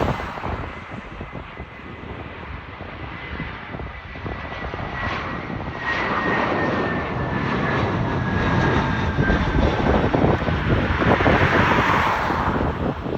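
Jet airliner passing low overhead on its landing approach: a rushing engine noise that swells to a peak near the end, with a thin whine that slowly falls in pitch as the plane goes by.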